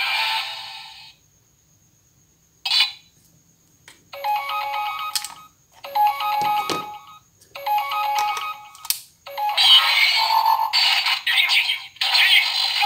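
Auldey DX Rescue Driver toy playing electronic sound effects through its small speaker: a short blip, then a ringtone-like electronic tune that repeats three times, then a louder, busier stretch of the toy's sound effects once the Rescue Black piece is fitted.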